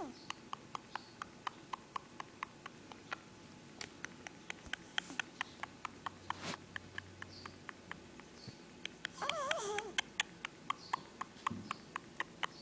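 Persian cat snoring in its sleep: a long run of quick clicks, about three or four a second, with a short wavering squeak-like sound about nine seconds in.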